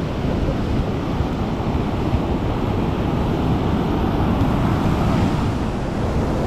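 Surf breaking and washing up the beach, with wind buffeting the microphone in a steady rumble.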